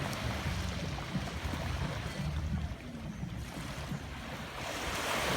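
Ocean waves washing on the shore over a steady low rumble, with a wave's wash swelling up louder near the end.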